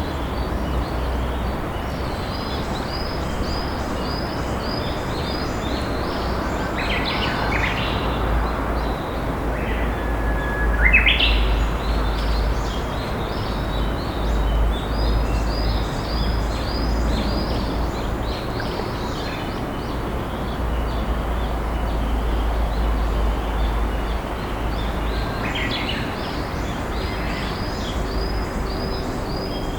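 A gently flowing river rushing steadily beneath wild birds singing in repeated short chirping series. About eleven seconds in, the loudest call is a long held whistle that breaks upward into a quick flourish, the song of a Japanese bush warbler (uguisu).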